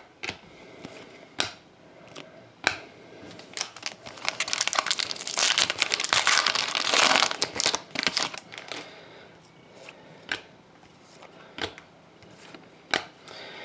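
Trading-card pack wrapper crinkling and tearing open, with a dense stretch of crinkling from about four to eight seconds in, amid scattered clicks and taps of cards being handled.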